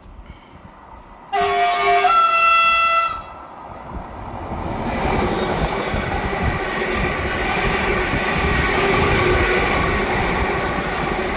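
Class 745 Stadler FLIRT electric train sounding its horn for about two seconds, a lower note stepping up to a higher one, starting about a second in. Then the train running past, its rumble and whine building steadily.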